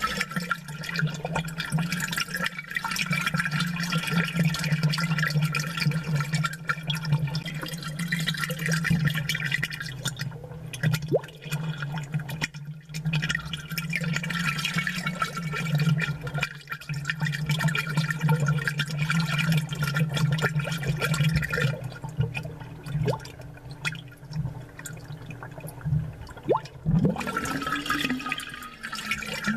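Aquarium water bubbling, amplified, over a steady low hum.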